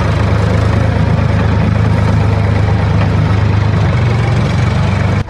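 Tractor engine idling with a steady low rumble that cuts off abruptly at the end.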